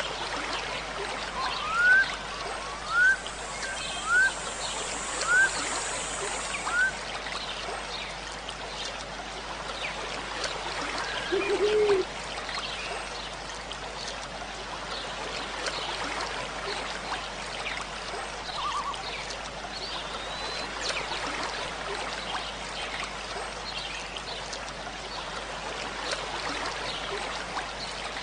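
Steady sound of flowing water, like a stream, with a bird giving five short rising chirps in the first seven seconds. A brief low wavering call comes about eleven seconds in.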